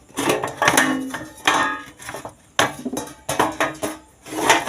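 An amplifier's metal cabinet cover being worked loose and lifted off, clanking and rattling about six times, each knock ringing briefly.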